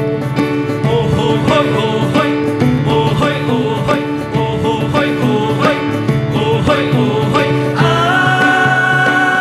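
Instrumental music: quick plucked-string notes over a repeating bass line, with a long held note coming in near the end.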